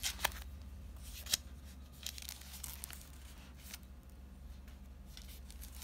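Thin Bible-paper pages of a new Bible being flipped and turned, with a few sharp crackles near the start and about a second and a half in, then fainter rustling. The pages are sticking together, as a never-used Bible's do, and crackle as they peel apart.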